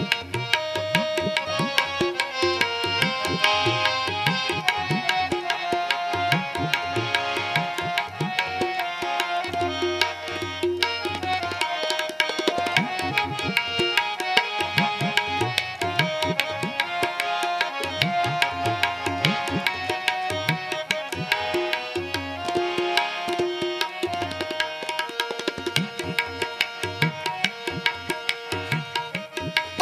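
Instrumental interlude of Sikh kirtan: harmoniums hold the melody over a fast, steady tabla rhythm, with the bass drum's pitch bending up and down.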